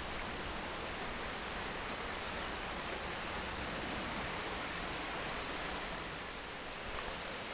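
Steady rushing of a shallow river flowing over rocks and riffles.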